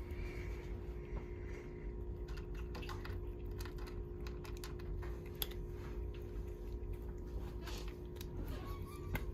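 Scattered light clicks and taps at an irregular pace, as cats play with toys, over a steady low hum.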